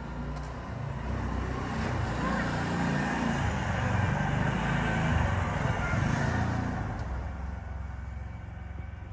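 Engine and rushing noise of a passing motor vehicle, building to its loudest about halfway through and then fading away.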